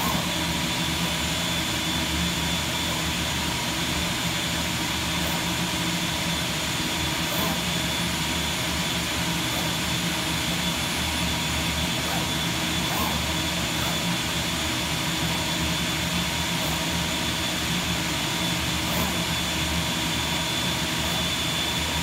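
CNC digital cutting table running while working a sheet of corrugated cardboard: a steady whooshing drone with a thin high whine and a few faint ticks.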